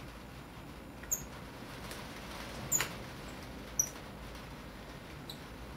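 Fingers handling a steel watch case, making about four short, high squeaks and clicks, the loudest a little under halfway through, over a steady hiss.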